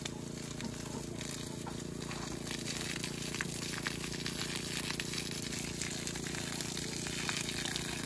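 Water from a garden hose spraying and splashing onto soil and plants: a steady rush of water with many small drop impacts. A steady low hum runs underneath.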